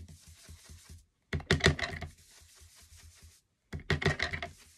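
Ink blending brush dabbed rapidly against card stock in two quick bursts of soft tapping and scratching, with fainter brushing between.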